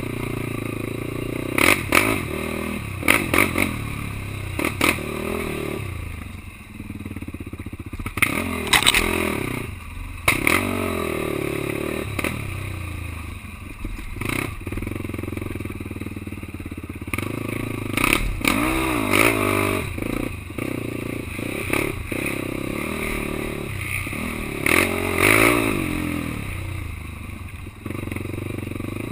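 Quad (ATV) engine running, its revs rising and falling repeatedly, with scattered sharp knocks and clattering.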